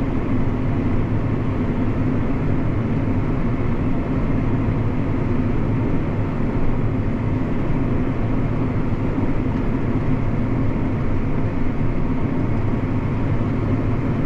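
Diesel engine of an 8310 tractor running steadily, heard from inside the cab as a constant low drone.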